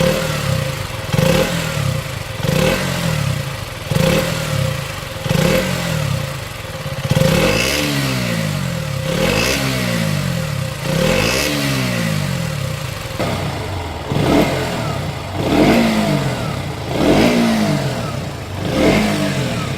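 A KTM Duke 125's single-cylinder four-stroke engine revved repeatedly while standing: a run of short throttle blips, then three longer revs that climb and fall back, then more short blips.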